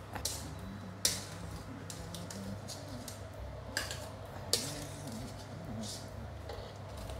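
Light clinks and knocks of utensils against dishes and a pot, a handful of separate strikes, the sharpest about a second in and again a little past four and a half seconds.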